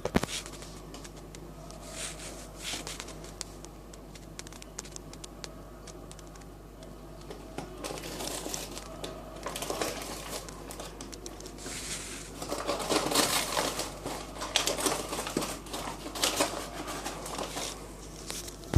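Paper popcorn bag crinkling and rustling as it is handled, in irregular crackles that grow louder and busier in the second half.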